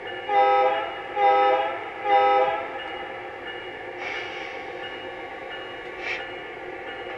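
A model diesel locomotive's onboard sound system sounding its horn in three long blasts, one after another, over a steady background hum. A brief hiss follows about four seconds in.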